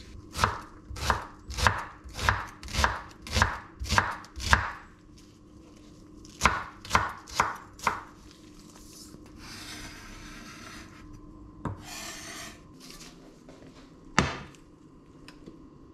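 Chef's knife chopping onion on a bamboo cutting board: a run of about eight even strokes, a short pause, then four more. After that come two brief rasping scrapes and two single knocks, the second one louder.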